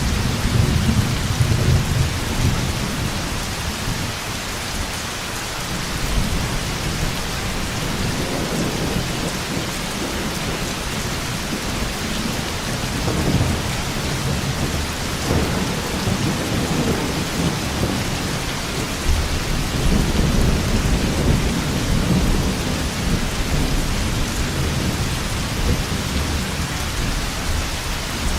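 Thunderstorm: steady heavy rain with rolling thunder rumbling underneath, swelling near the start and again about two-thirds of the way through.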